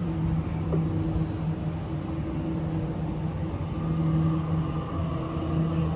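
Sydney electric suburban train running at the station: a steady low rumble with a held electrical hum.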